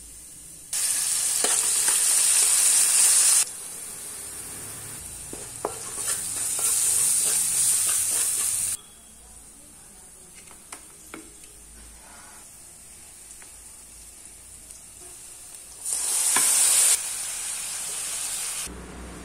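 Seeds and chopped tomatoes frying in hot oil in a metal pan, sizzling, while a metal spoon stirs and scrapes the pan. The sizzle is loud in three spells, starting about a second in, about six seconds in and about sixteen seconds in, with quieter stretches of scattered clicks between.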